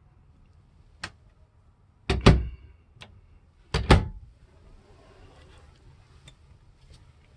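Motorhome wardrobe doors being closed: a light click about a second in, then two louder double knocks, around two and four seconds in.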